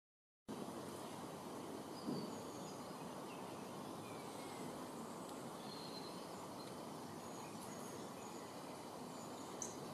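Steady outdoor background noise with faint, scattered bird chirps, starting about half a second in. A soft low thump about two seconds in is the loudest moment, and a sharp click comes near the end.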